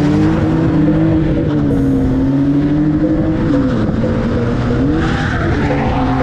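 Drift car engine held at high revs, its pitch rising and falling as the car slides through a corner, with tyre noise underneath. The revs dip briefly about three and a half seconds in and again near the end.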